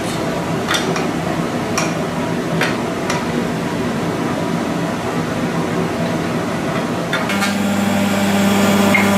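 Steady workshop machine noise with a low hum, broken by four sharp metal clicks in the first three seconds as the fence of a woodworking jointer-planer is set. About seven seconds in, the machine's motor starts, adding a stronger steady hum that builds toward the end.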